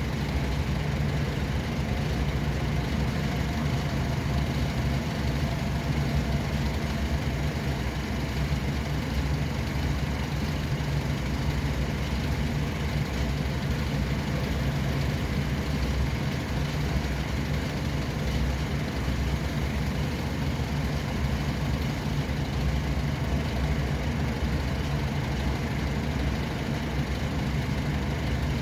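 Steady, low engine hum of motor vehicles on a road, unchanging with no sudden events.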